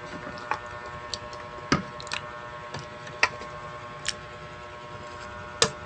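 Close-miked mukbang eating sounds: sharp, irregular single clicks and crunches, about one every half second. A steady low electrical hum runs underneath.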